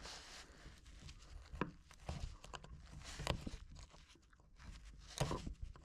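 Faint scraping and a few sharp clicks of a hand tool working on a wooden dresser, likely while the crack is being filled.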